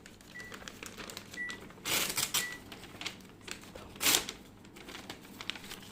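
A McDonald's Happy Meal's paper and cardboard packaging being handled and opened: a run of small clicks and crinkles, with two louder rustling swipes about two and four seconds in.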